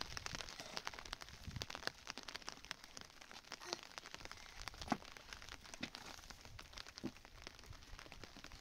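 Raindrops pattering on a surface: scattered, irregular light ticks, with one louder knock about five seconds in.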